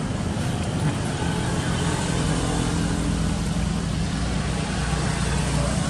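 A steady low drone of a running engine, as from a motor vehicle idling nearby.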